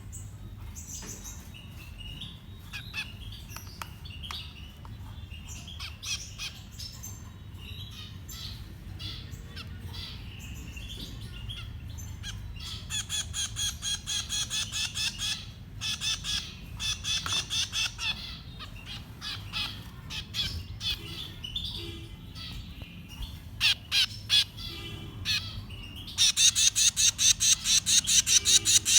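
Baby birds begging to be fed: bursts of rapid, high chirps repeated several times a second, with scattered single chirps between them. The loudest burst comes near the end.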